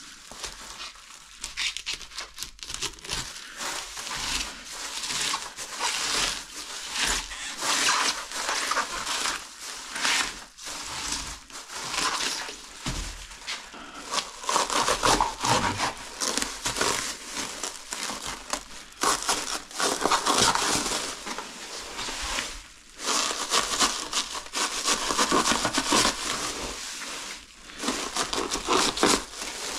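Plastic stretch wrap crinkling and tearing as it is cut with a cleaver and pulled off a coiled bundle of mountain bike tyres.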